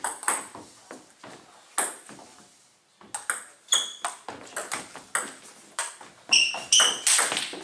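Table tennis rally: the ball clicking off bats and the table. A few hits at first, a pause of about a second, then a quick run of hits from about three seconds in, with a few short high squeaks among them near the end.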